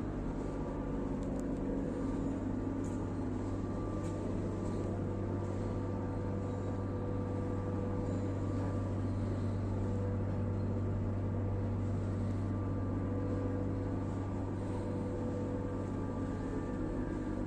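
Hot steel-rolling mill machine running steadily, a constant low hum with faint steady tones above it and no change in pace.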